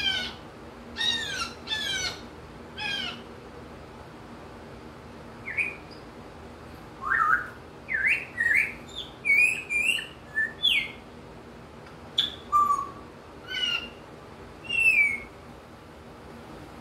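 African grey parrot giving a string of short whistled calls and chirps, many sweeping down in pitch, in imitation of wild birds. Four calls come first, then a pause of a couple of seconds, then a busier run of calls.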